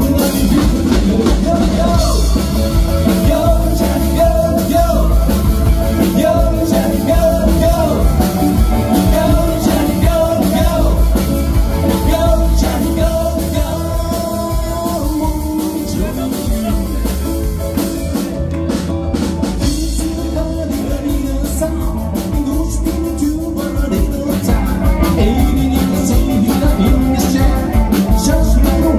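Live band playing an upbeat rock and roll number with a drum kit, a singer's voice over it.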